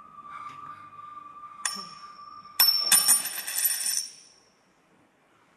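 Theatre sound cue: a steady high held tone, then a bell-like strike under two seconds in, and about a second later a louder shimmering crash of ringing metal that stops suddenly about four seconds in.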